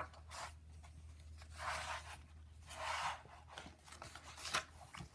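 Pages of a large paperback picture book being turned by hand. The paper swishes twice, about two and three seconds in, and there are a few light taps near the end.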